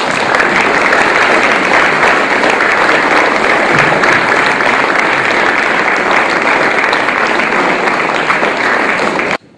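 Audience applauding at the end of a lecture; the applause cuts off suddenly near the end.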